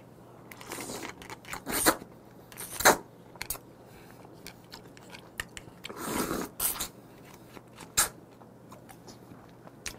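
Swimming crab being picked apart with chopsticks and eaten: scattered sharp cracks and clicks of shell and chopsticks, with chewing.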